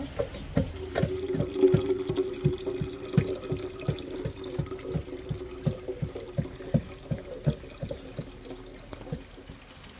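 Tap water running into a metal kettle, with a steady tone as it fills. Under it, a regular soft knocking about two or three times a second.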